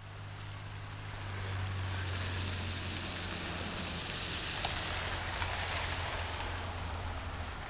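A steady low hum under a rushing noise that grows louder about a second and a half in.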